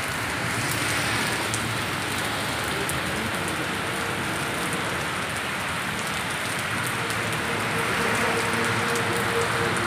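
Heavy rain pouring steadily onto wet paving and puddles, a continuous even hiss of falling water.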